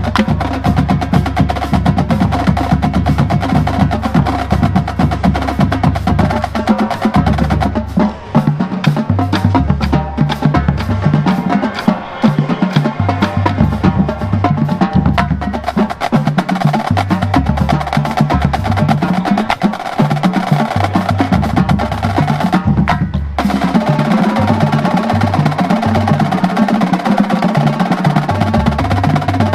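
Marching drumline playing a cadence: rapid snare strokes over tuned bass drums whose notes step between several pitches. A very short break about 23 seconds in, then it plays on.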